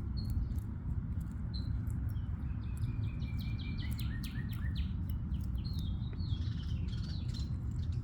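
Songbirds chirping, with a quick run of short repeated notes in the middle and warbling calls after it, over a steady low rumble.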